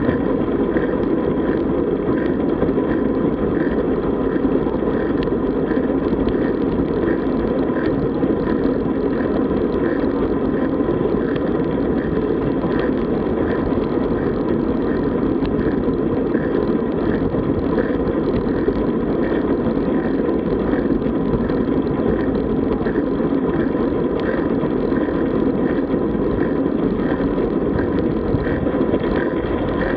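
Steady rush of wind and road noise from moving along a road on a bicycle ride, with a faint regular ticking.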